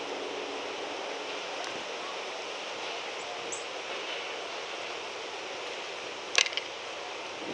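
Steady wind and outdoor background hiss, with a faint high chirp about three and a half seconds in and a single sharp click near the end.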